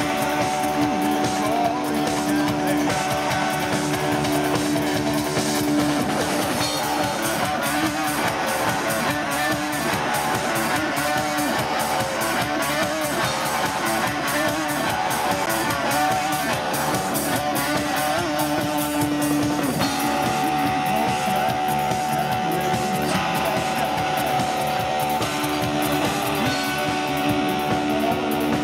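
Live rock band playing loud, guitar-driven music, with long sustained guitar notes and chords ringing over a dense, steady backing.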